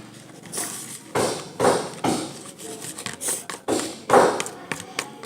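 A stirrer tapping and scraping against a container in quick, uneven strokes while mixing slime as it begins to thicken.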